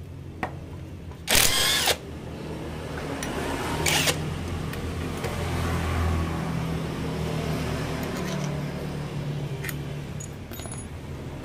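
Two short bursts from a pneumatic impact wrench, a longer one about a second and a half in and a brief one near four seconds, over the steady hum of a motorcycle engine running nearby.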